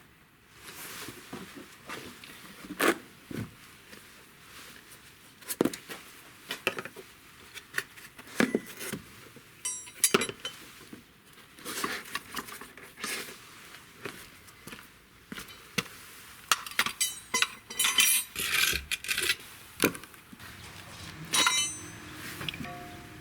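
Steel lug wrench and other metal tools clinking and clattering against concrete, sharp ringing clinks at irregular intervals, busiest in a cluster toward the end.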